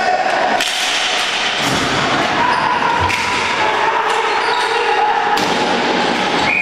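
Box lacrosse play on a concrete arena floor: several sharp knocks of the hard rubber ball and sticks hitting the floor and boards, under shouting voices.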